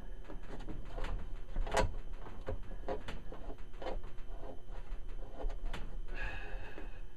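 Irregular light clicks and knocks of a hand working at a washing-machine outlet box, reaching in to turn on the hot water valve.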